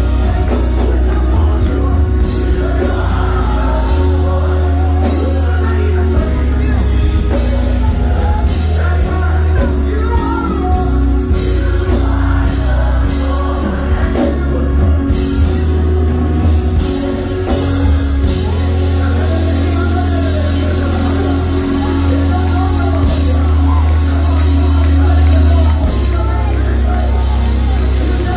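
Live gospel worship music: a group of singers on microphones singing together over an amplified band with a deep, loud bass.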